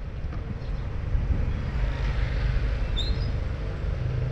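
Street ambience: a steady low rumble of traffic, with a few short high chirps about three seconds in.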